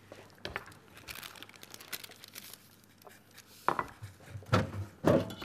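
Kitchen handling noises as food is taken out of a refrigerator: rustling and crinkling with light clicks, then three louder knocks of containers near the end.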